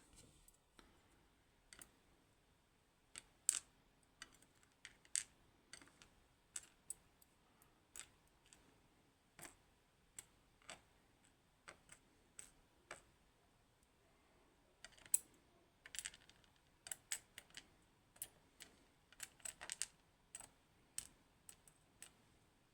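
Faint, irregular clicks and taps of small metal lock parts being handled: the pins and parts of a gutted pin tumbler lock. The clicks come closer together in the second half.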